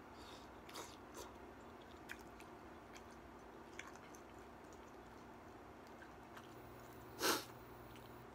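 A person chewing a mouthful of kimchi hot pot, faintly, with a few small clicks. Near the end there is one brief, much louder noise.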